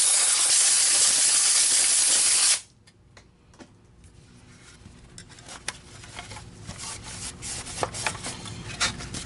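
A loud, steady hiss of escaping air or spray cuts off abruptly about two and a half seconds in. After it come quiet scattered clicks and rubbing as parts are handled.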